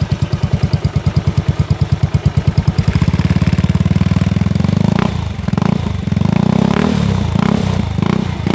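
Yamaha Mio Sporty scooter's single-cylinder four-stroke engine running through an Apido Chicken Pipe v3 aftermarket exhaust. It idles with a rapid, even beat, speeds up about three seconds in, and from about five seconds in is blipped in short revs.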